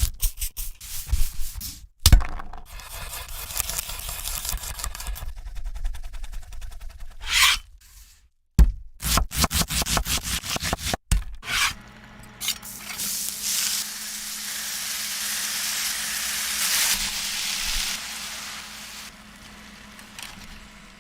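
Cooking sounds in short cut-together clips: rubbing and scraping for the first half, then a steady hiss that swells and fades in the second half.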